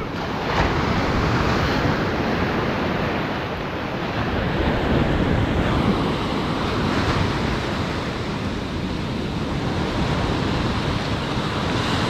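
Ocean surf breaking and washing up a sandy beach: a steady rush that swells and eases.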